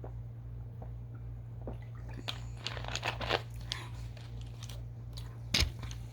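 Close-up mouth sounds of chewing a watermelon Push Pop gummy roll: a cluster of small wet clicks and smacks between about two and three and a half seconds in, then one sharp knock near the end, over a steady low electrical hum.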